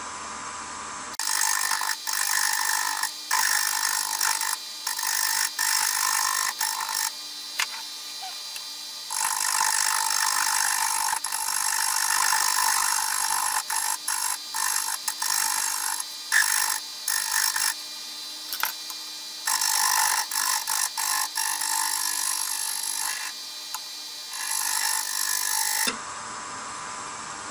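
Lathe tool cutting a wooden hammer-handle blank mounted off-centre for offset turning, spinning at 750 RPM: a hiss of shavings in passes that start and stop every second or few, over the lathe's steady hum. The cutting stops about a second and a half before the end.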